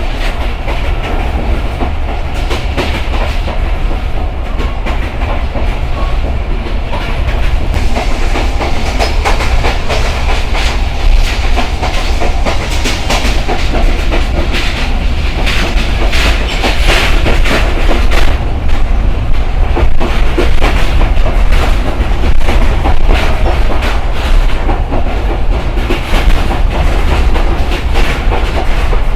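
Simanta Express passenger train running on the track at speed: wheels clattering over the rails in a dense, continuous clickety-clack over a heavy rumble, getting a little louder after a few seconds.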